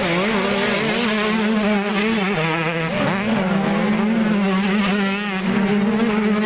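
125cc two-stroke motocross bikes racing, several engines revving hard at once, their pitch rising and falling as the riders work the throttle over the jumps.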